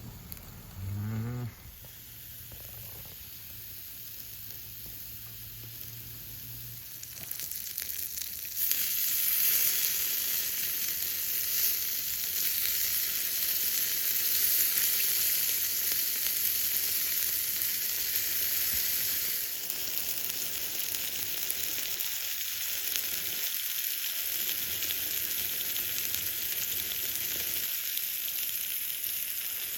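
Food sizzling on a small cast-iron griddle plate over low heat, a steady hiss that grows louder about eight seconds in. A short rising tone sounds about a second in.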